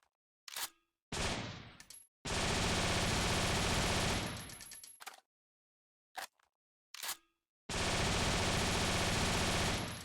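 AR-style rifle sound effects: a few short mechanical clicks, a single loud shot that rings away, then a long burst of fully automatic fire. After more clicks about six seconds in, a second long automatic burst follows, ending with a fading tail.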